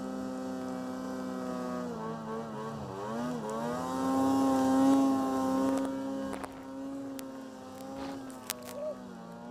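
Arctic Cat snowmobile engine running through powder. Its pitch drops briefly about two seconds in, then climbs back to its loudest around the middle before easing to a lower steady speed. A few short ticks come near the end.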